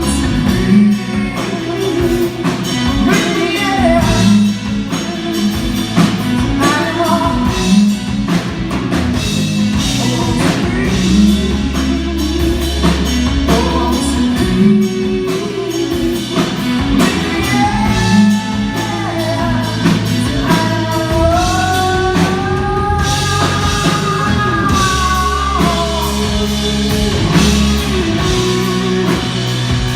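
Rock band playing live with a lead vocal over electric guitars and drum kit. The singing stands out most clearly about two-thirds of the way through.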